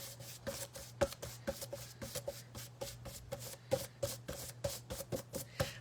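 Paintbrush working acrylic paint on a flat artboard: quick, irregular scrubbing and dabbing strokes several times a second as the background colours are blended. A low steady hum runs underneath.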